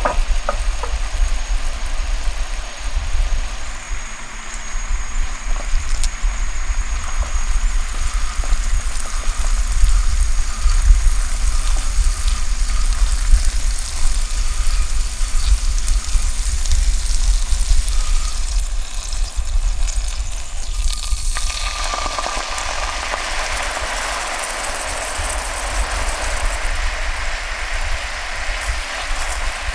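Black-sugar syrup boiling and sizzling in a frying pan as it cooks down toward caramel, with butter melting into it. About twenty seconds in, the sizzling gets louder and brighter. A steady low rumble runs underneath.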